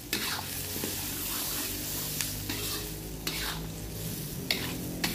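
Goat meat and vegetables sizzling in a hot wok while a metal spatula stirs and tosses them, scraping and clinking against the wok every second or so.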